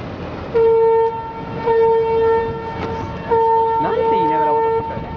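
Miniature train's whistle sounding three blasts, the third the longest, with a softer held tone trailing on after them.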